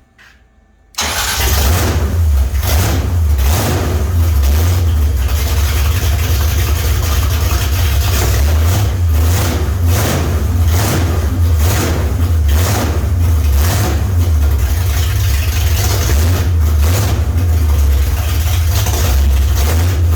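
Ford 390 FE big-block V8 with straight, open headers firing up about a second in and then running loudly, its revs surging and easing, its first start after a carburetor rebuild.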